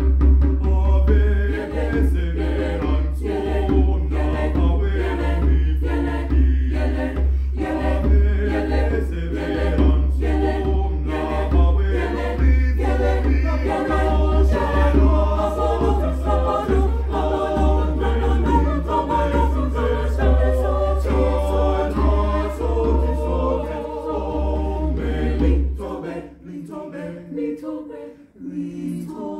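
High school choir singing a cappella, many voices together, over a steady low rumble. About 26 seconds in the rumble cuts off and the singing grows softer and thinner.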